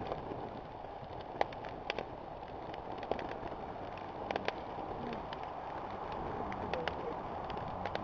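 Campfire crackling: irregular sharp pops and snaps of burning wood over a steady low hiss.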